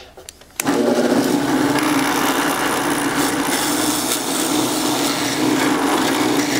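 Drill press starting up about half a second in and running steadily, its bit boring a hole into plywood for an insert nut.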